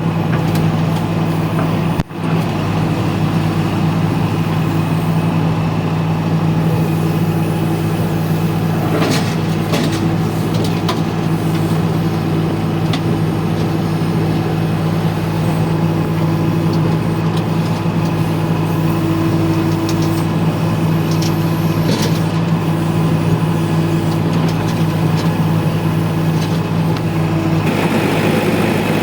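TATA TH86 backhoe loader's diesel engine running steadily at a constant speed, with a brief break about two seconds in and a change in its sound shortly before the end.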